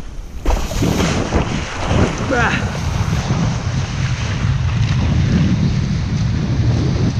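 Strong wind buffeting an action camera's microphone as a kiteboard planes fast over choppy water, with the hiss of spray underneath. About two and a half seconds in there is a short, wavering whistle-like tone.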